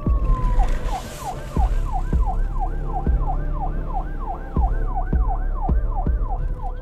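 Emergency-vehicle siren: a long tone falling in pitch, which about half a second in switches to a fast yelp sweeping up and down about three times a second, over a steady low thumping beat.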